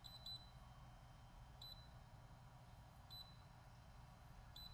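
Faint, short high-pitched beeps from a Lowrance HDS Gen3 touchscreen fishfinder/chartplotter as its screen is tapped, confirming each touch: five in all, two close together at the start, then one about every second and a half.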